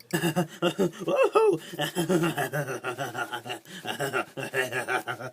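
A person laughing hard and without stopping, in rapid repeated bursts of voice with a few rising and falling whoops.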